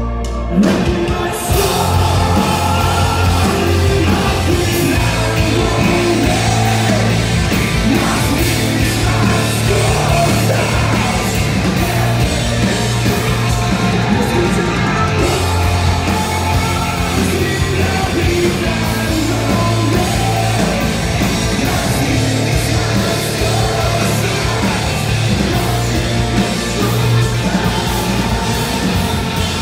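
Live rock band playing loud, with electric guitar, bass, drums and a singer's voice. The full band comes in together about half a second in, after held sustained notes.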